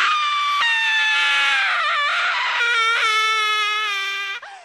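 A long, high-pitched scream that wavers in pitch, dips briefly about two seconds in, and turns shaky and trembling in its second half before breaking off.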